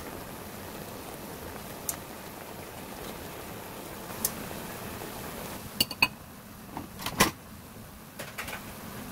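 Marinated LA galbi beef short ribs simmering in their sauce in a pan, a steady bubbling hiss. Metal tongs click against the pan and ribs as they are turned, with a few sharp clicks in the second half.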